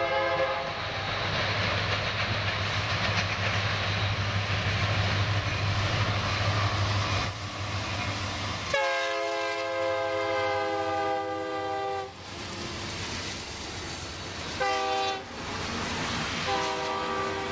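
Diesel freight train passing, with a low engine hum and rail noise. It then sounds its multi-chime air horn in the grade-crossing pattern: a long blast, a short one, then another long one.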